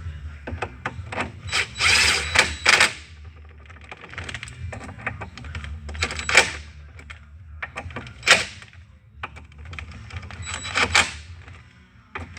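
Metal clicking and clatter of hand tools and bolts on a door closer's aluminium body being assembled, in four short bursts, over a low steady hum.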